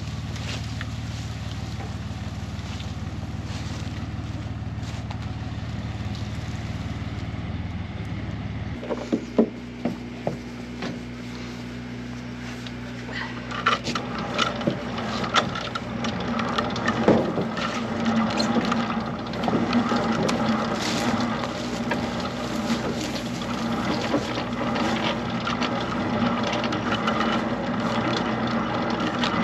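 An engine running steadily; about nine seconds in its pitch drops abruptly, and sharp knocks and clatter join it, growing busier and louder from about thirteen seconds in.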